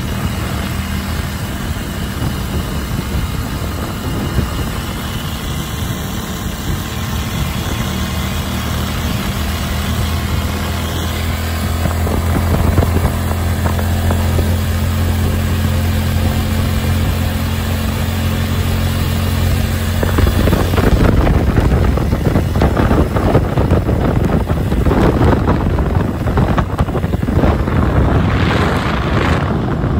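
Motorcycle engine running at a steady cruising speed with wind noise on the microphone. About two-thirds of the way through, the engine's even drone is swamped by heavy wind buffeting.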